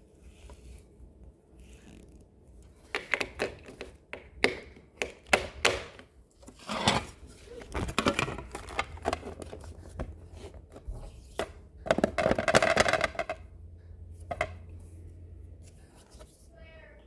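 Slime mixed with foam balls and beads being squeezed and pressed by hand: irregular bursts of crackling, popping and clicking, densest about twelve seconds in.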